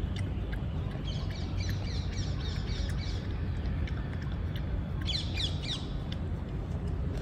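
Birds chirping in two bouts of quick, short falling notes, about a second in and again about five seconds in, over a steady low background rumble.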